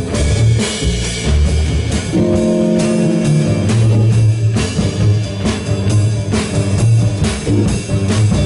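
Live jazz band playing: saxophones over a drum kit and a double bass line that moves in steady, even notes. A held chord sounds from about two seconds in for roughly a second and a half.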